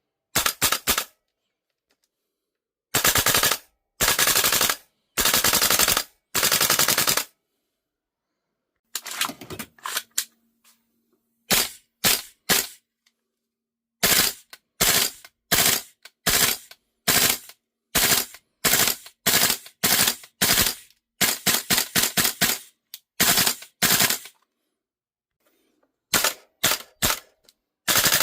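VFC AR15 gas-blowback airsoft rifle firing. First come several full-auto bursts of about a second each, then a long run of single shots, often about two a second.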